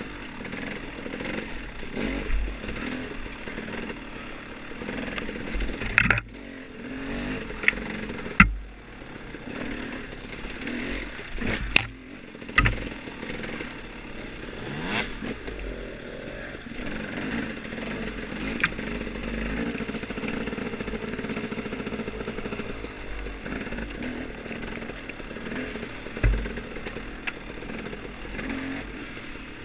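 Off-road dirt bike engine running and revving up and down over rough ground, with sharp knocks and clatter from the bike several times.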